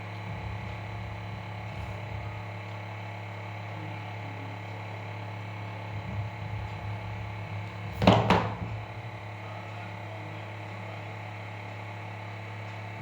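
Steady low electrical hum throughout. About eight seconds in comes a short, sharp double noise of the watch packaging being handled while it is unboxed.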